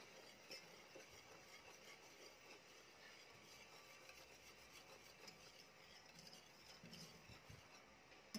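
Faint stirring of thick teriyaki sauce with a wire whisk in a pot, with light, scattered clinks of the metal whisk against the pot.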